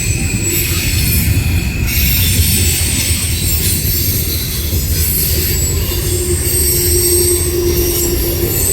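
A train rolling past: a steady loud rumble of wheels on rail, with thin high-pitched squealing from the wheels running through it.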